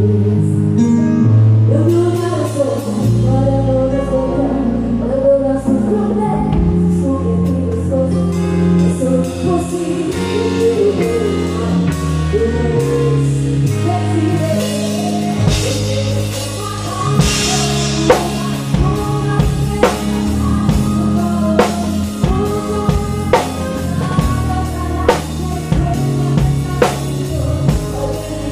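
A live band plays a slow ballad with a singer over sustained bass. About halfway through, the drum kit close by comes in with evenly spaced strikes, roughly one every second.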